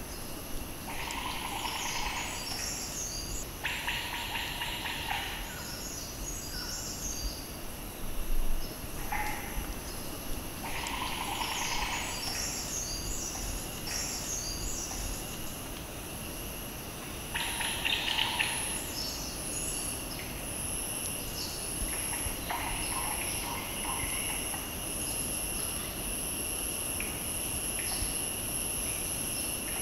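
Forest daytime ambience: insects keep up a steady high buzz that turns into a run of regular pulsing chirps in the second half. A bird repeats a short call phrase in several bouts.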